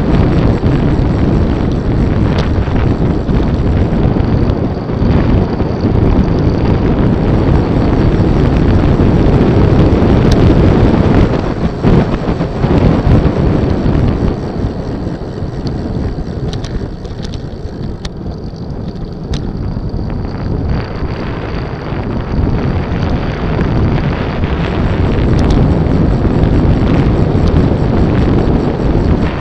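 Wind buffeting the camera microphone of a rider moving along a winding road, a loud low rumble that eases off for several seconds midway and then comes back up.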